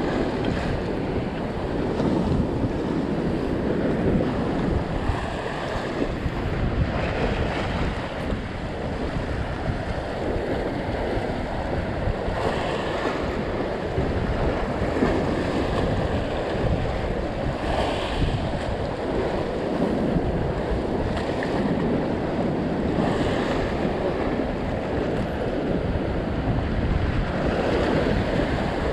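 Ocean swell surging and breaking against the rock ledge below, a steady wash of surf that rises and falls, with wind buffeting the microphone.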